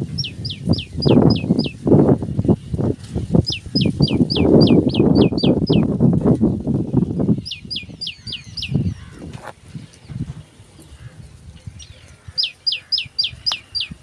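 A small bird, which the uploader identifies as a wagtail, calls in four quick runs of six to nine sharp notes, about five a second, each note dropping in pitch. A low rushing noise runs under the first half and fades out about halfway through.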